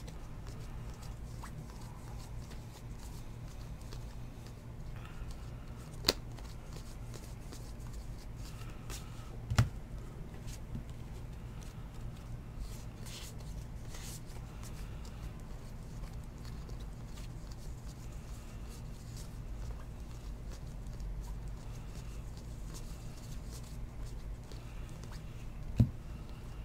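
Baseball trading cards being flipped through and slid past one another by hand, a soft rustle of card stock over a steady low hum. There are three sharp clicks, the loudest about ten seconds in and near the end.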